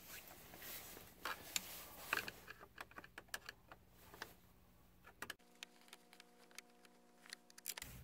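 Faint small clicks and ticks of hands and a screwdriver working around the plastic steering-column shroud of a Jeep Compass while the Phillips screw holding the turn signal switch is backed out. A faint steady hum takes over for the last couple of seconds.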